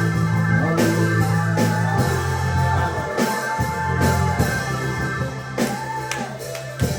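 Live church praise music: drums and guitar over long held bass notes that change every second or two.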